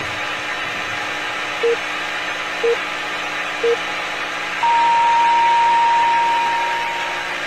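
Time-signal pips over a steady hiss: three short, low beeps a second apart, then one long, higher beep marking the hour as the clock's second hand reaches twelve, fading out near the end.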